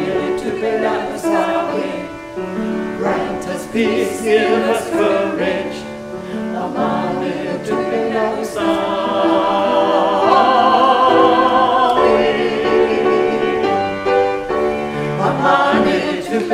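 A choir sings with the loose rhythm of a hymn, holding one long, wavering note with vibrato from about eight to twelve seconds in.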